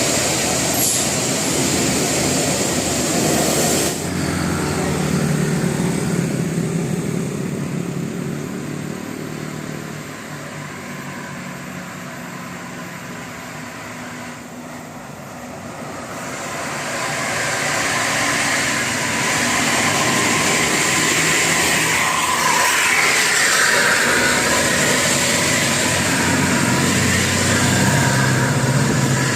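Large buses driving past on a road: engine and traffic noise, dipping in the middle and swelling again in the second half as more vehicles go by.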